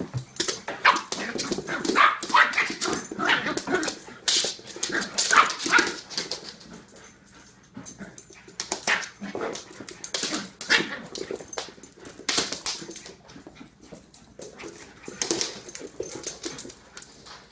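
A large poodle and a young puppy playing: short yips and barks over scuffling and paws clattering on a hardwood floor. It comes in bouts, busiest in the first half and again from about nine to thirteen seconds in.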